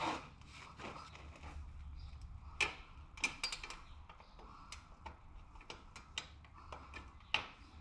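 Irregular metal clicks and taps of hand tools and parts being worked at a Harley-Davidson's shifter linkage, with the sharpest clicks about two and a half seconds in, a quick cluster a little after three seconds, and another near the end.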